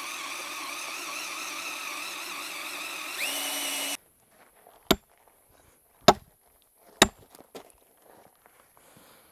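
Cordless drill running steadily under load as a large bit bores into a wooden timber; its pitch rises shortly before it stops, about four seconds in. Then a sledgehammer strikes a steel bolt being driven down into the timber: three sharp blows about a second apart, followed by a lighter one.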